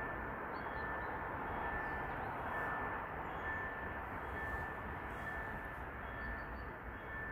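Steady distant rumble and hiss of outdoor ambience, with a faint steady high tone that drops out now and then and a few faint high chirps.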